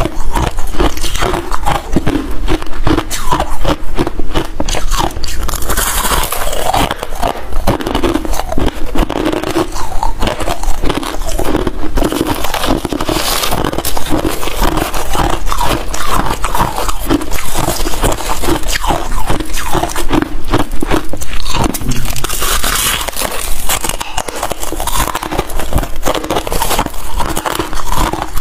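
Freezer frost being bitten and chewed close to a lapel microphone: a dense, unbroken run of crisp crunches.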